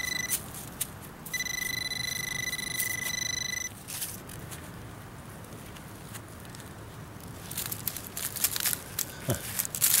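Handheld metal-detector pinpointer giving a steady high buzzing alarm tone as it is held against a target in the dig hole, breaking off briefly about a second in and stopping for good near four seconds in. From about seven seconds in, a gloved hand scrapes and crumbles loose soil in the hole, with crackling dirt and dry leaves.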